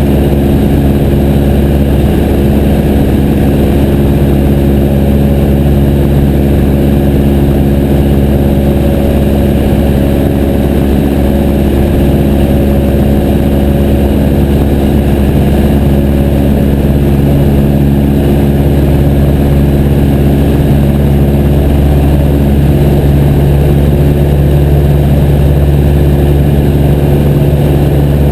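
Piper J3 Cub's air-cooled flat-four engine and propeller running at steady power, a loud even drone. Its tone shifts slightly about twenty seconds in.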